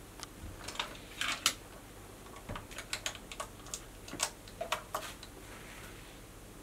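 A front door's metal lock and handle being worked by hand: a quick, uneven run of clicks and rattles lasting about five seconds, then stopping.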